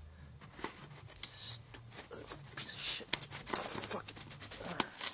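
A hose clip and vacuum hose being worked loose by hand under the intake manifold: scattered clicks and short scraping and rustling, with sharper snaps about three seconds in and near the end.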